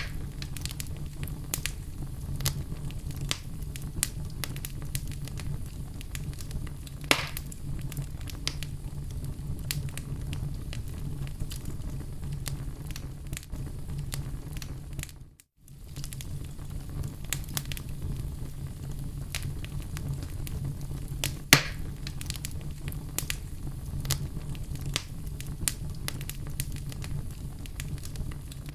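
Wood fire burning in a fireplace: a continuous crackle of small snaps over a steady low rumble, with two louder pops, about 7 and 21 seconds in. The sound drops out briefly about halfway through.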